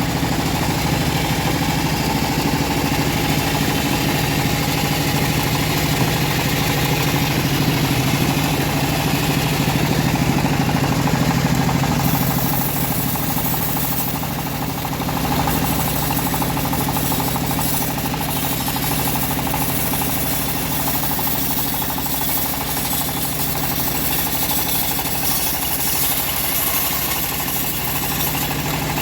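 Engine-powered homemade bandsaw mill running steadily with a constant engine hum. About twelve seconds in the sound shifts: the low hum eases and a high hiss comes up.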